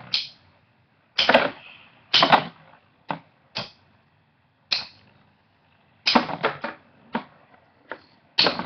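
Two metal-wheeled Beyblades battling in a plastic stadium: about ten sharp, irregular clacks as the spinning tops strike each other and the stadium, with quiet spinning between the hits.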